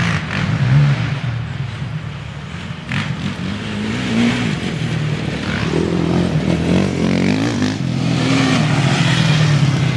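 Several racing ATV (quad) engines running hard as the quads pass, their pitch rising and falling a few times, getting louder toward the end.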